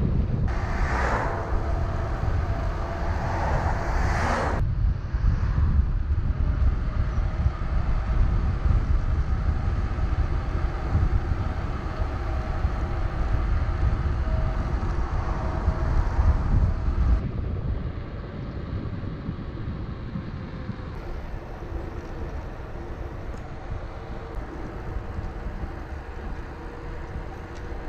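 Wind buffeting the microphone of an action camera on a bicycle descending a paved road at speed, a steady rush heaviest in the low end. A brighter hissing rush stands out for a few seconds near the start, and the noise eases somewhat about two-thirds of the way through as the speed drops.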